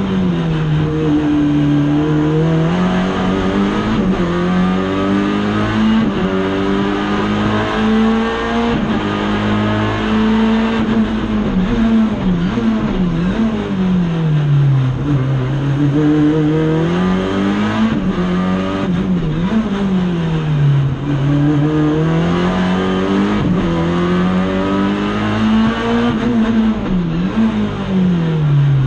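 Race car engine heard from inside the cockpit under hard driving, revs climbing under acceleration and falling away as it brakes and downshifts for the corners, several times over, with the deepest drops about halfway through, around two-thirds in and near the end.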